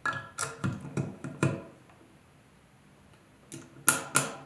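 A screw being driven into a wooden board with a MetMo Driver ratcheting screwdriver turned by hand. There are two runs of sharp clicks: about six in the first second and a half, a quiet gap, then a few more near the end.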